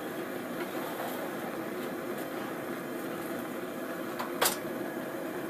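Homemade 3/4-inch pipe forge burner running, a steady rush of flame, with one sharp clink about four seconds in.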